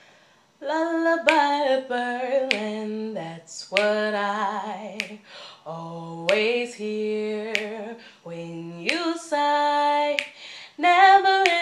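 A woman singing solo, unaccompanied, in long held notes with vibrato, phrase after phrase with short breaths between; the singing starts about half a second in.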